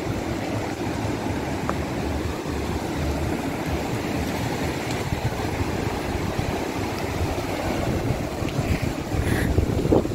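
Fast-flowing mountain river rushing steadily.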